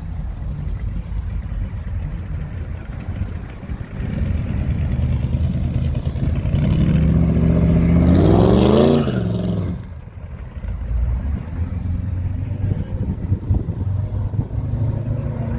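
A car engine running with a low rumble, revved once: the pitch climbs for about two and a half seconds in the middle and then drops back sharply to idle.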